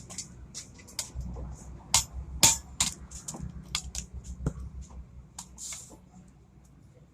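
Metal tools and clutch-plate parts being handled, giving irregular sharp clicks and clinks with the loudest about two and a half seconds in, over a low steady hum.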